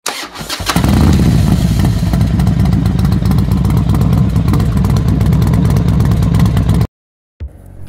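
Motorcycle engine running, loud and steady, starting about a second in and cutting off abruptly near the end.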